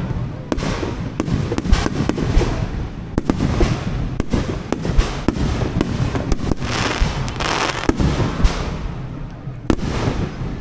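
Fireworks display: aerial shells bursting in a rapid, uneven series of sharp bangs, with a denser stretch of crackling a little past the middle.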